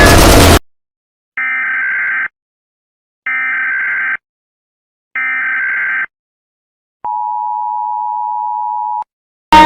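Emergency Alert System alarm opening: three screechy data bursts of the SAME header, each about a second long with a second's gap between them, then a steady attention tone for about two seconds. A loud sound cuts off just after the start, and guitar music begins at the very end.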